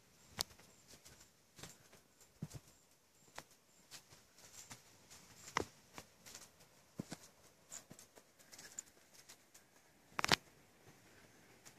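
Walking over grass and a dirt path with a hand-held camera: scattered soft clicks and thuds of footsteps and handling, about one or two a second and unevenly spaced, the loudest a short knock about ten seconds in.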